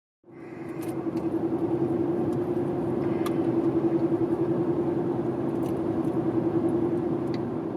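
Car driving: steady road noise with a droning hum that pulses slightly, and a few light clicks.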